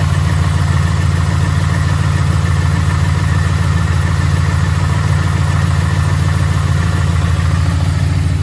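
2011 Ford F-150's 5.0-litre V8 running at a steady idle with a knock that the owner takes for rod knock.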